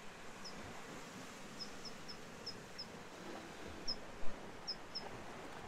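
Quiet outdoor ambience: a faint steady hiss with short, high chirps repeating irregularly, about nine times.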